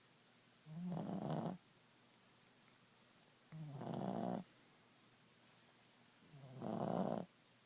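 Boston terrier snoring in its sleep: three snores, each about a second long, coming evenly about every three seconds.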